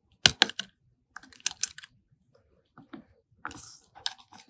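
Small sharp clicks and taps in short clusters from tools and small parts being handled inside an opened iPhone XS Max during disassembly.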